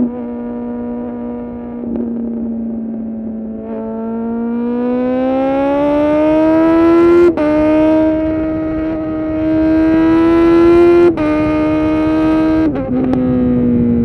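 2020 Kawasaki Z900's 948 cc inline-four through a full titanium SC-Project exhaust, heard from the rider's seat. It holds steady revs, then accelerates hard from about four seconds in with a rising note. Short breaks for upshifts come around seven and eleven seconds in, and the revs drop near the end.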